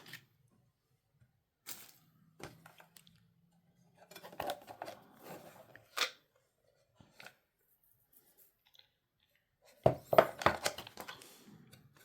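A Yu-Gi-Oh mystery power cube's packaging being opened by hand: scattered clicks and rustles with quiet gaps, a sharp click about six seconds in, and a busier stretch of handling near the end.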